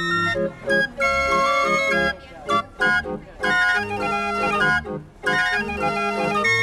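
A 45-key Bruns trumpet street organ, hand-cranked, playing a medley melody in held organ-pipe notes, broken by several brief pauses between phrases.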